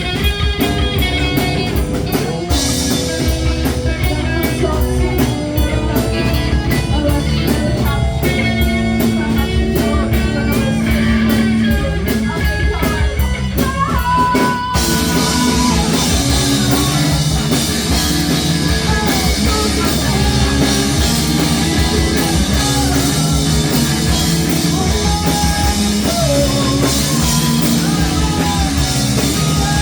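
A rock band playing live: electric guitar and bass over a drum kit. The playing gets fuller about halfway through.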